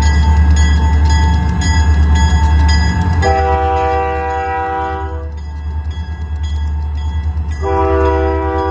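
Diesel freight locomotive approaching a grade crossing, its engine a low rumble under the steady pulsing ring of the crossing-signal bell. About three seconds in, the locomotive's horn sounds a chord of several notes at once for about two seconds, and a second blast starts near the end.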